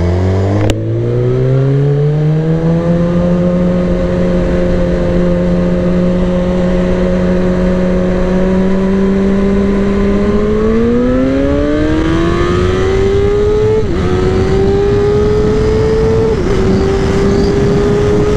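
Sport motorcycle engine pulling hard under wind rush. Its pitch climbs for a few seconds, holds steady while cruising, then climbs again under throttle, with two quick dips as it shifts up.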